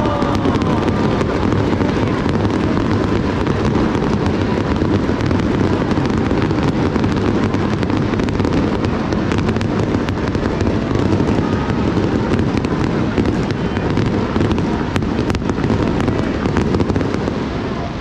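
Fireworks going off over water in quick succession, their bangs and crackling running together into one continuous din.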